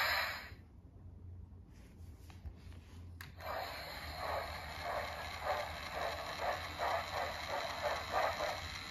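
A TrackMaster talking toy engine's small speaker playing a sound effect: a click a little after three seconds in, then a steady hiss with rhythmic puffs about twice a second, like steam chuffing.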